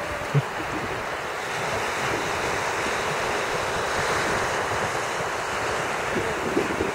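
Wind buffeting the camera's microphone in uneven low gusts over the steady wash of small waves on the shore, with one brief bump about half a second in.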